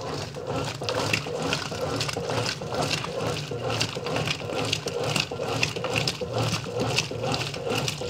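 1993 Brastemp Mondial BLL22 top-load washing machine agitating its load: the eight-vane agitator churns and sloshes soapy water in a steady rhythm of short strokes, with the basket turning freely because its brake band has been removed.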